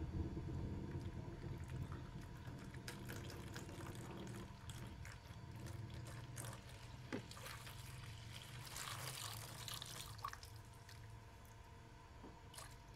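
Green radiator coolant pouring and dripping from the Yamaha NMAX's tipped-over plastic coolant reservoir into a plastic basin, faint, with a stronger splash about nine seconds in. A low hum fades out over the first few seconds.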